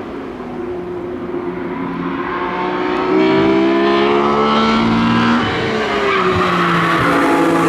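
BMW E46 M3 engine under hard acceleration on track, its pitch climbing steadily and getting louder about three seconds in. The pitch drops briefly about five and a half seconds in, then climbs again.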